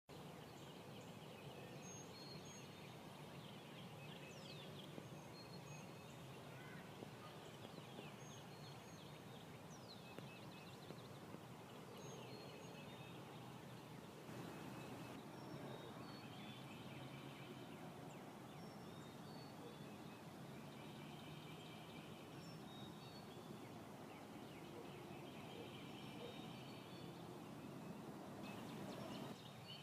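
Faint dawn chorus of spring birds: many short high calls and repeated trills from several birds. A louder, fuller call comes about halfway through and again near the end.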